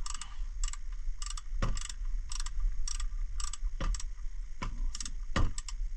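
Ratchet wrench clicking in short, uneven strokes as it turns loose a 17 mm oil drain plug, muffled by a camera's protective housing over a steady low hum.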